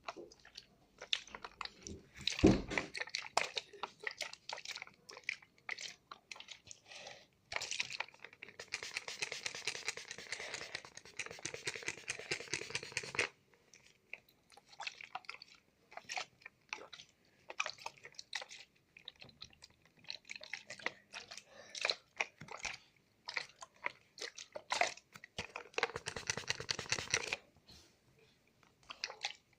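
Close-miked ASMR water sounds: irregular crackling clicks, a loud knock about two seconds in, and two longer stretches of steady hissing splash or pour, one of about five seconds in the first half and a shorter one near the end.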